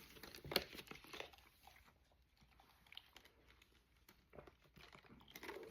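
Faint close-up chewing of food, with scattered small clicks and rustles; the sharpest click comes about half a second in.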